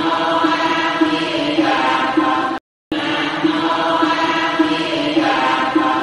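Buddhist devotional chanting, one short phrase looped: it breaks off for a moment about two and a half seconds in and starts over the same.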